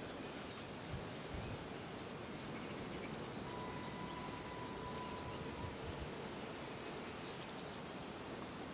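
A distant steam locomotive whistle, blown once and held for about two seconds near the middle, over a faint steady outdoor hush.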